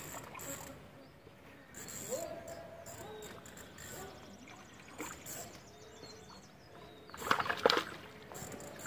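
Hooked carp splashing at the surface of a pond near the bank as it is played on a hand rod, with one louder splash about seven seconds in.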